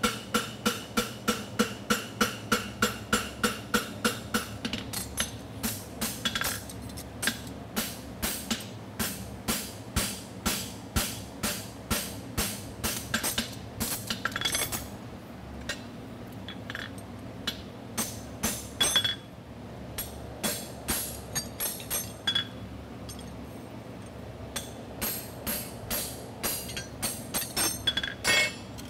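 Hand hammer striking a steel horseshoe on an anvil, quick ringing blows about four a second, forging the bevel of a front double bevel shoe. The blows come in runs with short pauses between, over the steady hum of a portable evaporative cooler fan.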